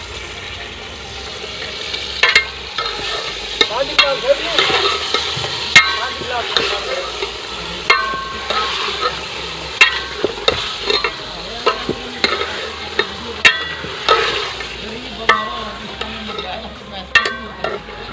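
Chicken pieces sizzling as they fry in oil in a metal pot while a metal ladle stirs them. The ladle clinks and scrapes against the pot wall at irregular intervals, about once a second.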